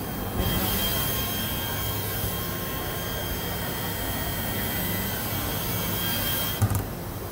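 Automatic CNC ball diamond-cutting machine at work: a high-speed cutting spindle gives a steady high whine and hiss as it cuts facets into a ball, over the machine's running hum. The whine starts about half a second in and stops near the end with a short knock.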